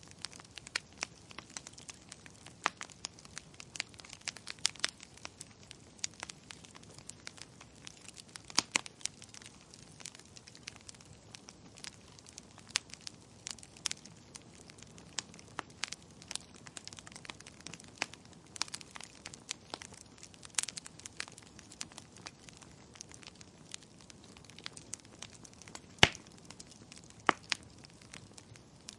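Burning logs crackling: irregular sharp pops and snaps at uneven intervals, with one loud pop near the end.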